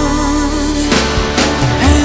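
Background song: a singer holds a long wavering note over the accompaniment, with drum beats coming in about halfway through.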